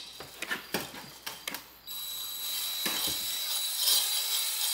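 Light, irregular metallic clicks and rattles, then about two seconds in a cordless drill starts running at low speed, spinning a spring-loaded hone inside a Kawasaki Brute Force 650 engine cylinder: a steady motor whine with the hone stones scraping the bore. The honing deglazes the glazed cylinder wall and cuts a crosshatch for new piston rings.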